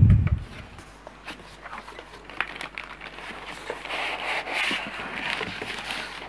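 A dull handling bump at the start, then scattered rustling, crinkling and scraping of foam packing and plastic wrap against a cardboard box as a boxed oscilloscope is lifted out, busiest around the middle.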